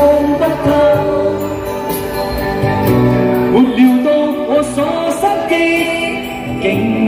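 Classic Cantopop music playing: a mostly instrumental backing track with held melody notes and some singing.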